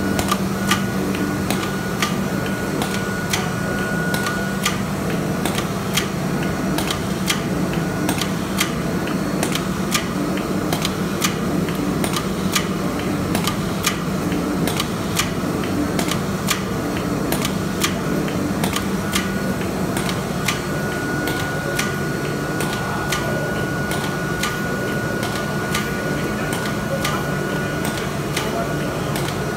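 Versor Vario double-sided tape applicator and its roller conveyor running as cardboard blanks feed through: a steady mechanical hum with rapid, irregular clicking, and a thin high tone that sounds for stretches.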